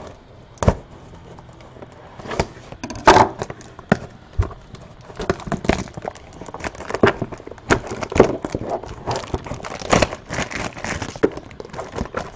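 Hands handling a plastic-wrapped cardboard trading-card box, making irregular knocks and taps with crackling of the plastic wrap.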